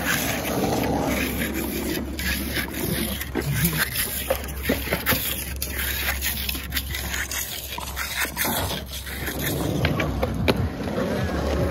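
Hand trowel scraping and smoothing wet concrete on a patch laid over asphalt. Near the end, skateboard wheels rolling on asphalt take over.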